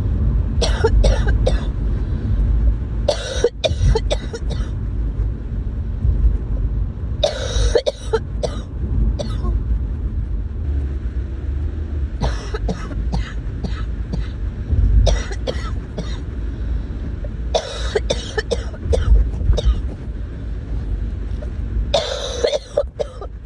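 A person with a cold and sinus congestion coughing in about seven bouts, several hard coughs in each, with a few seconds between bouts. A steady low rumble runs underneath.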